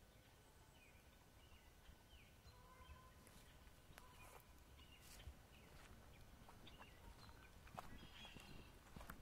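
Quiet wetland ambience with a few faint bird chirps, then soft, irregular footsteps on a leaf-strewn dirt trail from about three seconds in.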